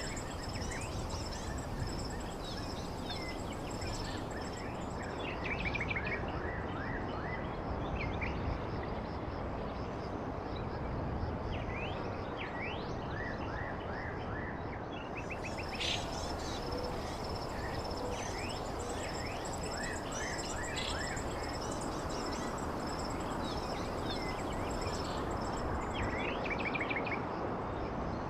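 Nature ambience: birds chirping and calling in short quick runs of notes over a steady background hiss, with a continuous high insect trill.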